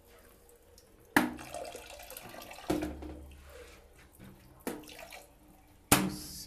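A thin jet of water from a bidet jet spray streams and splashes into the water of a toilet bowl. Four sudden knocks come about a second and a half apart as the plastic commode seat and lid are pressed down by hand to aim the jet downward.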